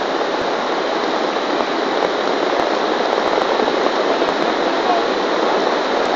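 Floodwater rushing down a river swollen by tropical-storm rain, a steady dense noise.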